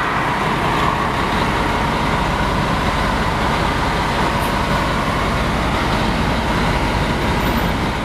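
Peterbilt 384 semi truck's Cummins diesel engine idling, heard from inside the cab as a steady low rumble under a broad hiss.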